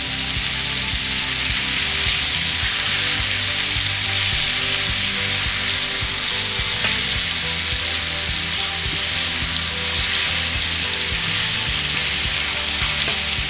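Floured fish fillets sizzling steadily in very hot oil in a stainless steel pan, as they are turned over with tongs to their browned side.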